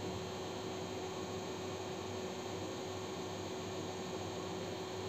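Steady hiss with a faint, even hum: room tone.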